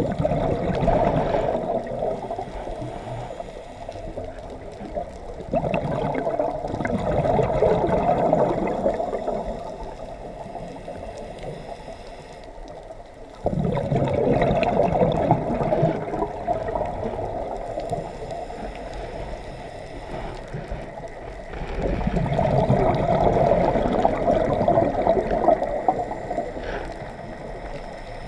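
Scuba diver breathing through a regulator underwater: exhaled bubbles gurgle and rush in four long bursts about every eight seconds, with quieter hiss between, muffled through the camera's underwater housing.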